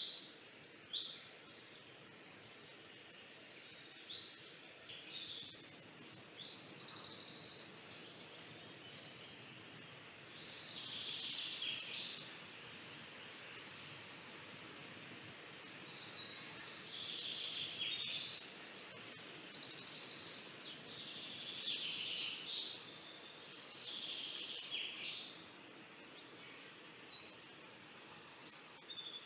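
Birds chirping and singing in short repeated phrases and trills over a faint steady background hiss, in several bouts of a few seconds each and busiest midway.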